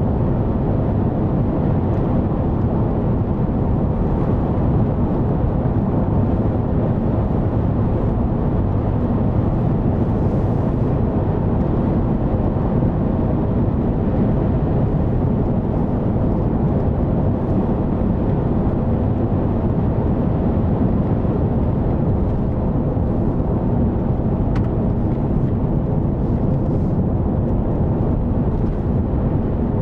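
Chevrolet Suburban driving at steady speed, heard from inside the cab: an even rumble of engine and tyre-on-road noise.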